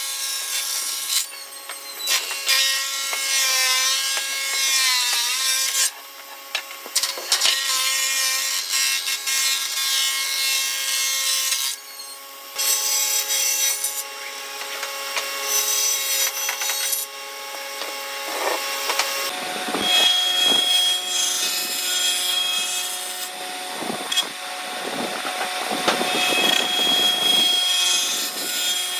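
Combination jointer-thicknesser planer running with a steady whine from its cutter head while wooden boards are planed, the cutting noise rising and falling as the wood passes the knives. The sound changes abruptly several times.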